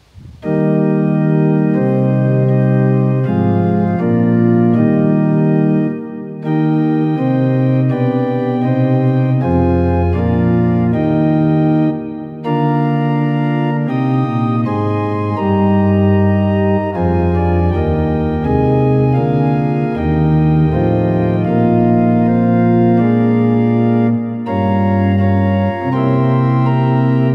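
Organ music: slow, sustained chords of held notes, broken by three brief pauses between phrases.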